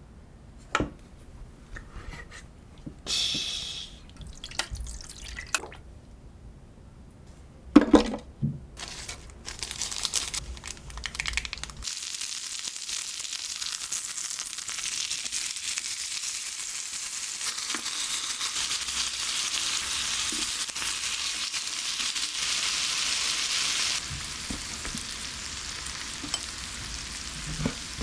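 Kitchen handling clicks and knocks, then from about twelve seconds in a steady hiss of pork neck sizzling in a hot frying pan, dropping somewhat in level about eight seconds later.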